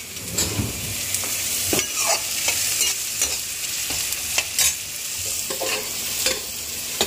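Onions frying in hot oil in a pan, a steady sizzle, while a spoon stirs and scrapes the pan in irregular clinks.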